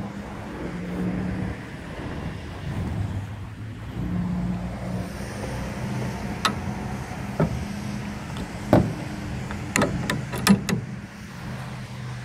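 Metal clamp levers on a truck ladder rack clacking as they are worked by hand: a few sharp clicks in the second half, then a quick cluster of them, over a steady low hum.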